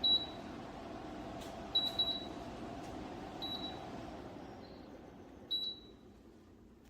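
Dreo tower fan's control panel beeping about five times, short high single tones as its settings are changed, over the steady rush of the fan's airflow, which fades away in the second half.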